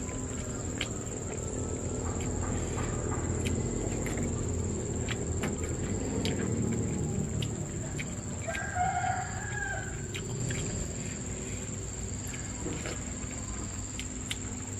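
A rooster crowing once, about halfway through, over a steady high-pitched drone of insects.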